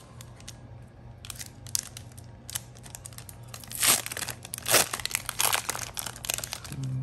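Foil Yu-Gi-Oh booster pack wrapper crinkling and tearing as it is worked open by hand, with two loud rips about four and five seconds in, then quick crinkles as the wrapper is handled.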